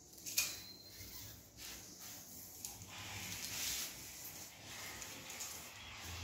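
Hands pressing a self-adhesive LED strip into a white plastic cable channel: faint rubbing and rustling of plastic and tape, with a sharp plastic click about half a second in.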